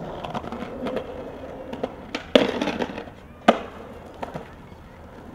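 Skateboard on concrete: two sharp clacks of the board, the first about two and a half seconds in and the loudest about three and a half seconds in, with smaller knocks and clicks between.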